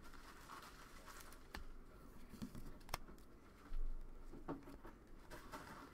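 Trading cards being handled and flipped through a stack by hand: soft rustling and sliding with a few light clicks of card edges. A short low thump about four seconds in is the loudest sound.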